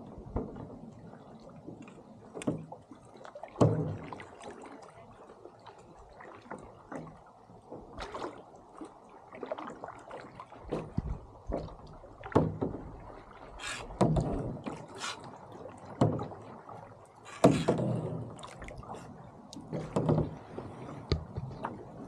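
Lake water slapping and splashing against the side of a small boat, in irregular sharp hits every second or two over a steady wash.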